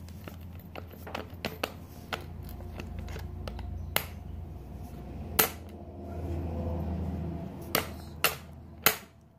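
Sharp clicks and knocks of parts being handled and worked by hand, coming at irregular intervals with the loudest about five and a half and nine seconds in. A steady low hum runs underneath and swells for about a second near the middle.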